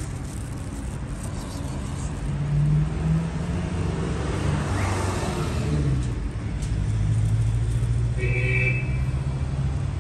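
Street traffic: a vehicle engine runs with a steady low hum, and a vehicle passes with a rising whoosh about halfway through. A brief high tone sounds near the end.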